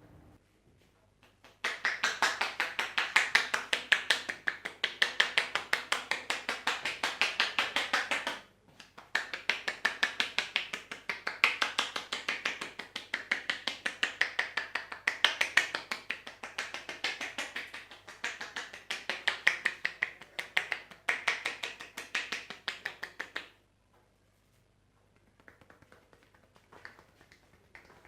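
Rapid, even percussive taps of a barber's hands striking the head in a head massage, about six a second. The tapping runs in two long stretches with a short break about eight seconds in, and stops well before the end.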